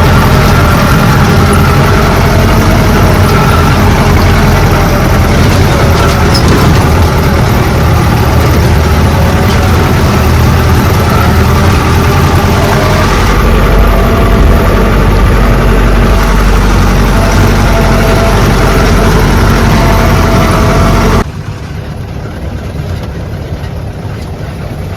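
Engine and road noise of a moving vehicle, heard from on board, loud and steady; about three-quarters of the way through it cuts abruptly to a quieter, steady rumble.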